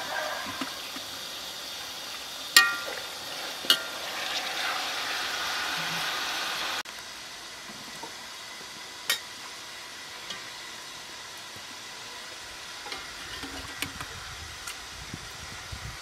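A metal utensil knocks twice against an aluminium cooking pot, each knock ringing briefly. Then hot juices sizzle in the pot for a few seconds and cut off abruptly, leaving a quieter background with a few small clicks.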